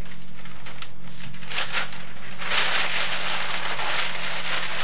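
Paper being handled and crumpled: a few sharp crackles, then denser rustling from about two and a half seconds in, over a steady low electrical hum.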